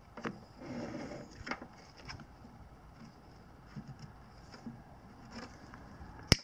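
Wire cutters working at a battery terminal: faint scattered handling clicks and scrapes, then one sharp snap near the end as the cutters close through the wire.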